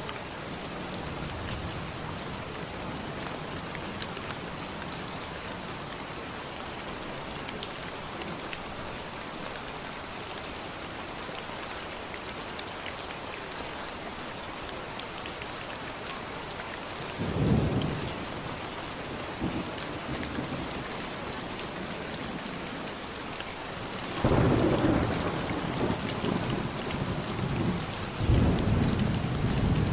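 Steady rain with thunder, one roll a little past halfway and a longer stretch of thunder in the last few seconds.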